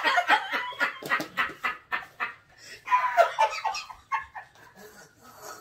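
Women laughing hard, a fast run of high, cackling laughs that dies down after about four seconds.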